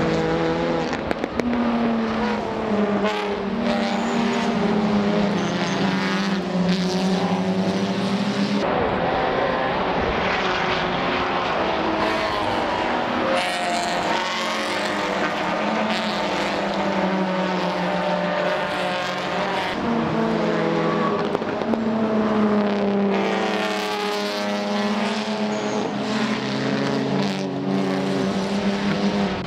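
A pack of GT300 and Toyota GT86 race cars running through a corner one after another, many exhausts overlapping. The engine notes rise and fall as the cars brake and accelerate past.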